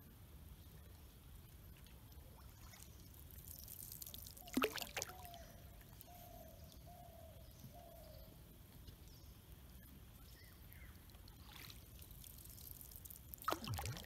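Water pouring and trickling around a canoe moving along the river, with two louder splashing strokes in the water, one near the middle and one near the end.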